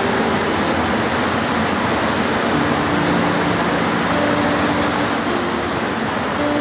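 Steady rain with an even hiss and no breaks, over a few faint, brief low hums.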